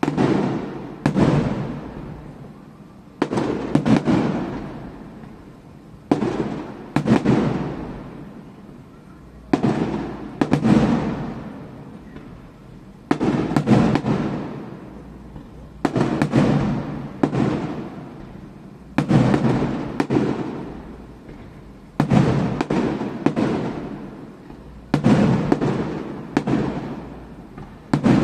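Aerial firework shells bursting in pairs about a second apart, a new pair every three seconds or so, each bang trailing off in a long echoing rumble.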